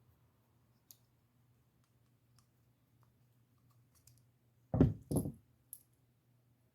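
Light clicks and taps of small carburetor parts and tools being handled as the fuel-pump side of a chainsaw carburetor is taken apart, with two louder knocks in quick succession about five seconds in.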